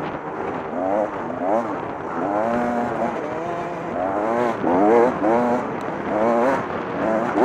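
Dirt bike engine revving up and down over and over as the throttle is worked through the terrain, its pitch rising and falling several times.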